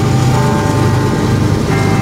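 Several GE diesel-electric freight locomotives passing close with a heavy train, their engines running in a loud, steady drone, with faint high tones coming in twice.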